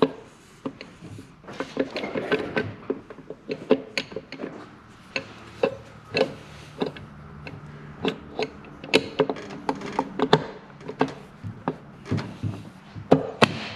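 Metal engine case cover being worked onto a motorcycle crankcase by hand, giving irregular light knocks, clicks and rubbing as it is shaken to slip over the dowel pins and shafts.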